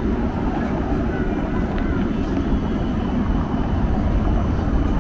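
City street traffic ambience: a steady low rumble of passing vehicles, with a few faint short squeaks and a single click about two seconds in.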